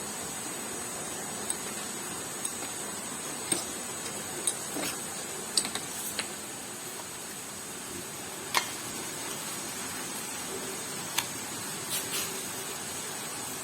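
Irregular light clicks and taps, about a dozen spread unevenly, over a steady background hiss.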